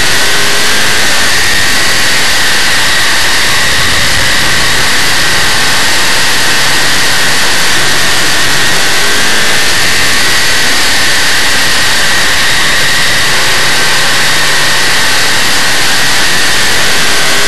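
Big-block Chevrolet V8 of a dirt modified race car running hard on track, heard from the onboard camera: a loud, steady engine noise with a dense rushing hiss over it and no break.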